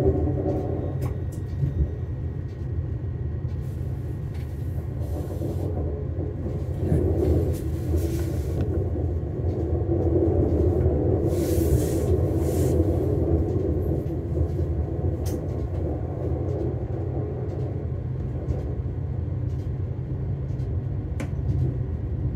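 Diesel train running along the track: a steady low rumble with scattered light clicks and a couple of brief hisses near the middle.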